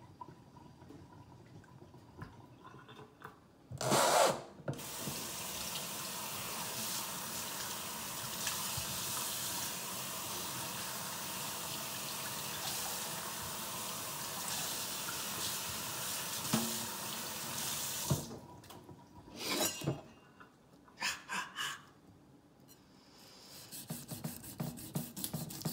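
Water from a kitchen faucet running into a stainless steel sink for about fourteen seconds, starting with a loud splash about four seconds in, then a few short splashes after it stops. Near the end, a knife cuts into a crappie behind its head in a fast run of small ticks.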